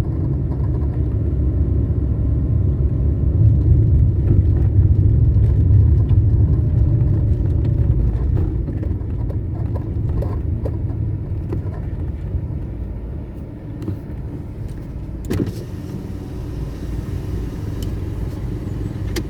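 Ford Fiesta Rocam hatchback running, a steady low rumble that is louder for the first several seconds and then eases off. A few light clicks come through, and one sharp knock about fifteen seconds in. The car has a strange noise that a mechanic has not yet traced.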